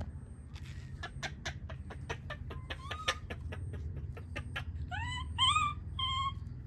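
A run of sharp, irregular clicks, then a few short rising squeaky calls, three of them in quick succession near the end, from a baby monkey.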